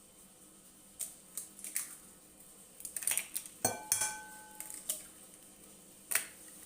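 A utensil clinking against a mixing bowl in a few irregular strikes while eggs are beaten, one clink ringing briefly about four seconds in.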